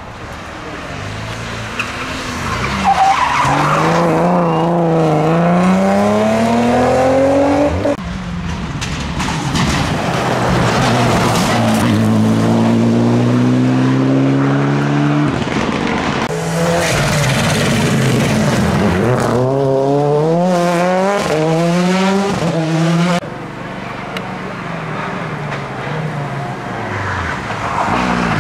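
Rally cars driven flat out, one after another, including a Mitsubishi Lancer. Each engine climbs in pitch through the gears and drops back on the shifts and lifts. The sound changes abruptly from one car to the next.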